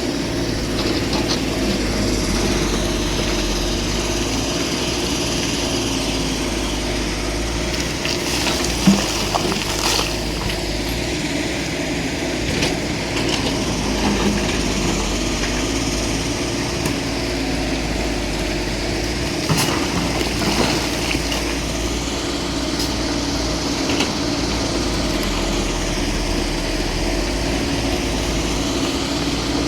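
Excavator's diesel engine running steadily, with a few sharp clanks from the machine now and then.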